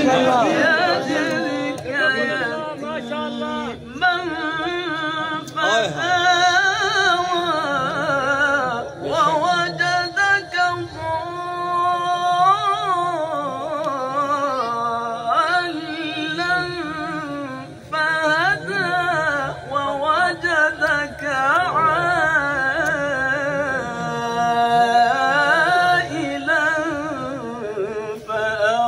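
A man's melodic Quran recitation (tilawat): long ornamented lines with a wavering, trilling pitch and several long held notes.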